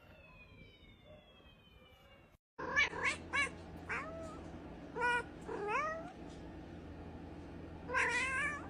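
Several cats meowing, about ten short calls, a few bending up or down in pitch, with the busiest stretch near the end, over a steady low hum. Before them, the first couple of seconds hold only faint falling whistle-like tones.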